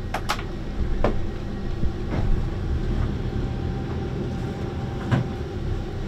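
Catamaran's inboard engines running steadily in reverse gear, a low even rumble, with a few sharp clicks and knocks over it.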